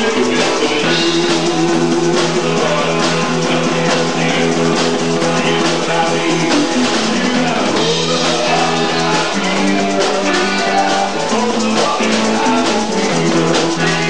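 Live rock band playing: electric guitar and drum kit, with a male singer at the microphone.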